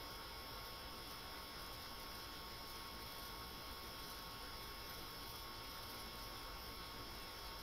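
Faint, steady hiss and hum with a few thin steady tones underneath, unchanging throughout. The dhoka pieces going into the pan make no distinct sound.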